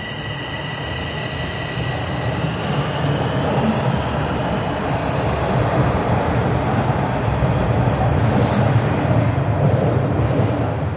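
Line 4 subway train running, its rumble growing steadily louder, with a high steady whine that fades out about two seconds in.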